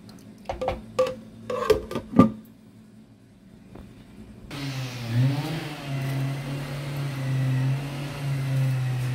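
A few knocks and clinks of a wooden spoon against the cooking pot, then about four and a half seconds in, a steady engine drone starts and keeps running: motorised machinery from garden work outside, rising briefly in pitch as it gets going.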